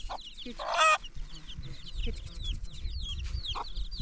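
Farm fowl calling: many short, falling high chirps throughout, and one loud, harsh call lasting about half a second just before the one-second mark.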